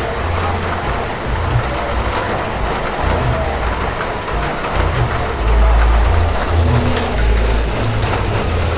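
Heavy rain falling steadily, a dense hiss of drops, over a deep uneven rumble that swells and drops back, loudest a little past the middle.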